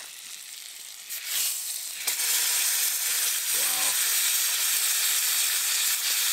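Thick rib steak laid into hot butter in a frying pan on a wood stove: the sizzle swells about a second or two in and then holds steady and loud.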